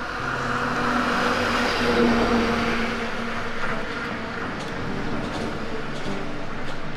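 A road vehicle passing, its noise swelling about a second in and fading slowly, over soft background music.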